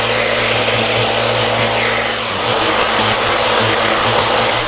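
Electric sander running steadily with 80-grit paper, sanding an epoxy-and-fiberglass repair on a wooden kayak hull: a loud motor whir over the rasp of the abrasive. The low hum wavers a little about halfway through.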